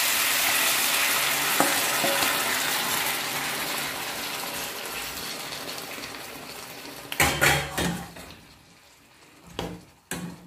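Marinated beef and its sauce sizzling loudly in a hot frying pan with green beans, the sizzle slowly dying down. About seven seconds in a utensil scrapes and knocks against the pan as the meat is stirred, with a couple of lighter knocks near the end.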